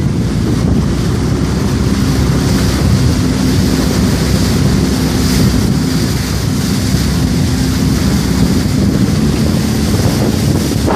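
Jet ski engine running steadily while riding, buried under heavy wind buffeting on the microphone and the rush of water.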